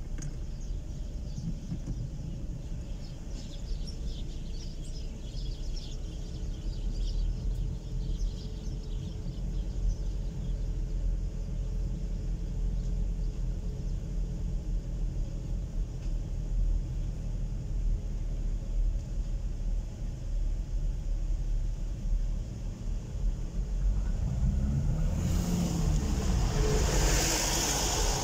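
Low, steady rumble of a car's engine and tyres heard from inside the cabin while driving slowly on a concrete road. Near the end it swells into a louder engine sound with a rushing noise as the car speeds up past a tractor and trailer.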